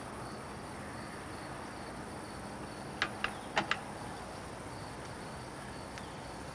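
Quiet outdoor ambience from the film's soundtrack: a steady hiss with faint, high cricket chirring, and a few short, sharp clicks a little after three seconds in.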